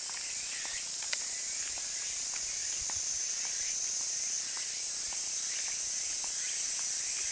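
A steady, quite loud, high-pitched chorus of insects in the trees, with a few faint, short bird chirps scattered through it.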